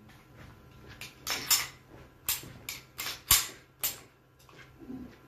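A Canik TP9SA 9 mm pistol firing a string of about six or seven shots over roughly three seconds, unevenly spaced, each a sharp crack ringing briefly in the indoor range.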